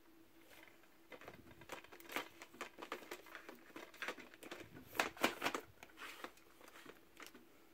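Plastic DVD cases clicking and scraping against each other as one is slid back into a tightly packed rack and the next is handled. A run of light clicks and rustles, loudest about five seconds in.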